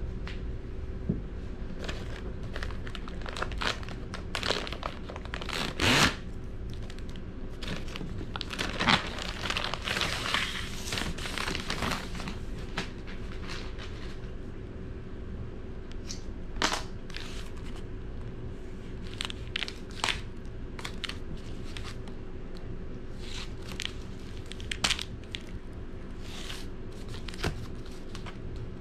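Paper packaging being handled and torn open on a wooden table: crinkling, tearing and scattered knocks from a padded paper mailer and the cardboard comic mailer inside it, with the densest tearing about a third of the way in. Near the end, a box cutter starts on the packing tape.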